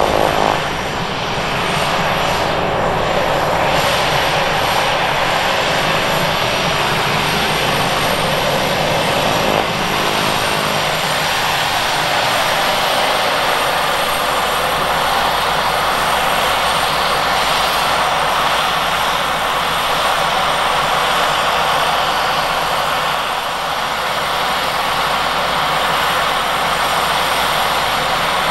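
Walter M601 turboprop of a Turbine Legend running steadily at taxi power, its three-bladed propeller turning: an even rushing sound with a thin, steady high turbine whine.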